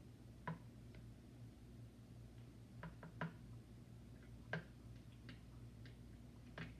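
A handful of light plastic clicks, spread irregularly a second or so apart, as a small plastic measuring cup taps against a plastic funnel while liquid dish soap is poured into it. A faint steady low hum sits underneath.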